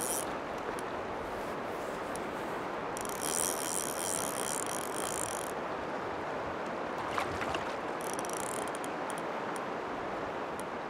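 Fly reel's click-and-pawl drag buzzing in spurts as a hooked fish pulls line off: briefly at the start, for about two and a half seconds from about three seconds in, and briefly again near eight seconds. A steady rush of river water runs underneath.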